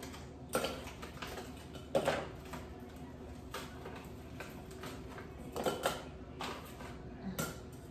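Frozen whole strawberries dropped by hand into a small plastic personal-blender cup: about five separate clunks spread over several seconds.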